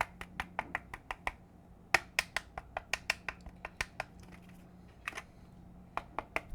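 Fingers tapping repeatedly on the plastic case of a keyboard, sharp light knocks in quick runs of several taps with short pauses between, testing how solid the case sounds.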